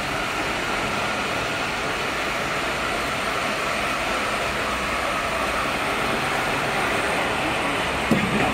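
Fibre cement board production-line machinery running with a steady, even noise, with a short knock near the end.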